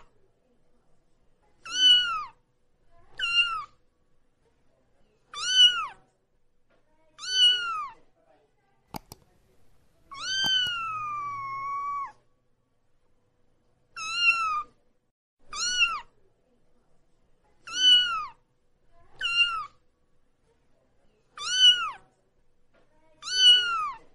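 A young kitten meowing over and over while being bathed in a sink: short, high, arching meows every second or two, with one longer drawn-out meow that falls in pitch about halfway through.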